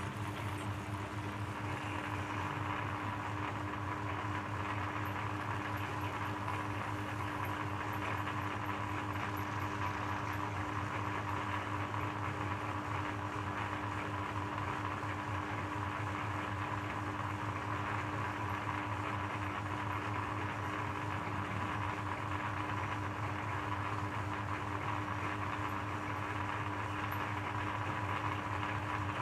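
Shredder machine running with a steady, unchanging hum and no distinct impacts.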